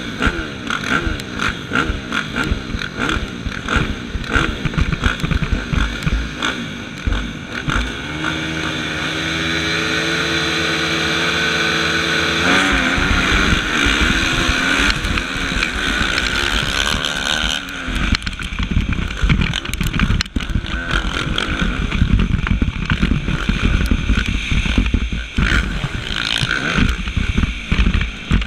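Suzuki motocross bike's engine heard close up from the bike during a race, its revs rising and falling with throttle and gear changes over rough ground, with wind buffeting the microphone. For about four seconds in the middle the engine holds one steady pitch, then drops away and goes back to short bursts of throttle.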